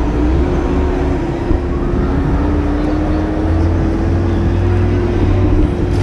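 Electric scooter in motion: a steady motor whine that rises slightly in pitch partway through, over a low rumble of wind on the microphone.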